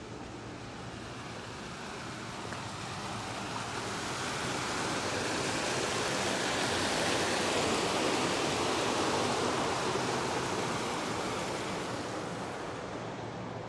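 A train running past, its rolling rush swelling to a peak and fading away over about ten seconds.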